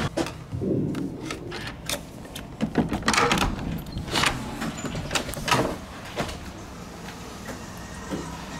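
A door being handled: a run of sharp clicks and knocks in the first six seconds, then only quiet background.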